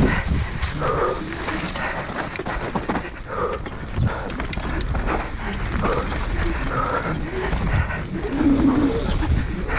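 Enduro mountain bike ridden fast down a rough dirt forest trail: wind on the microphone and the bike rattling over the ground, with the rider's hard breathing and grunts every second or two.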